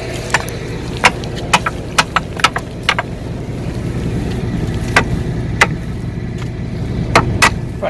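Tractor engine running steadily, with a scatter of sharp clicks and knocks over it: a cluster in the first three seconds, a couple around five seconds in and two more near the end.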